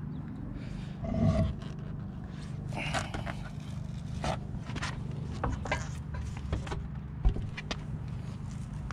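Lug nuts being spun off a car wheel by hand, with scattered light metallic clicks and scrapes, and a knock late on as the wheel is worked off the hub. A steady low hum runs underneath, and there is a louder short sound about a second in.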